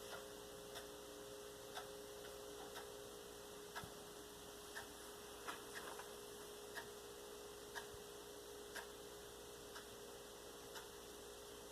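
Faint, even ticking about once a second over a steady low hum.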